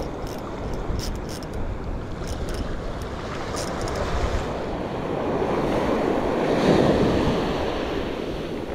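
Small surf waves washing onto a sandy beach, with wind buffeting the microphone; a wave swells and washes up about two-thirds of the way through. A few faint high clicks sound in the first few seconds.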